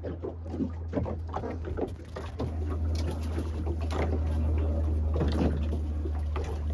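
Small open fishing boat at sea: a steady low rumble that grows louder about two and a half seconds in, with scattered knocks and water slaps against the hull.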